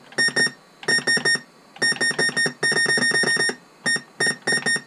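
Computer's internal PC speaker beeping rapidly and repeatedly on one high pitch, in irregular clusters of short beeps, after a DOS benchmark has crashed.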